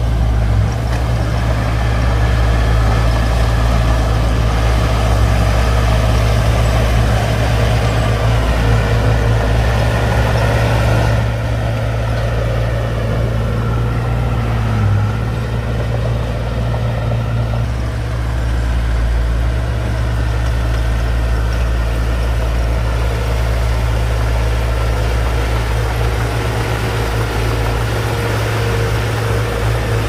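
Shantui crawler bulldozer's diesel engine running steadily as it pushes soil and stone with its blade, a low drone that eases slightly a little past halfway.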